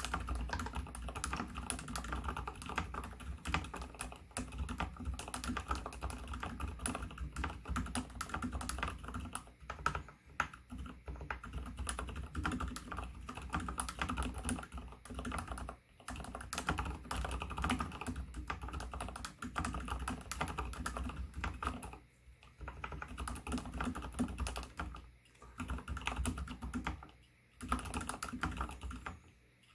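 Steady fast typing on an mStone Groove T SF mechanical keyboard with spray-lubed Gateron Silent Brown switches: a dense run of keystrokes with a few short pauses in the second half. Fingernails clicking on the keycaps are mixed in, which the typist finds grating.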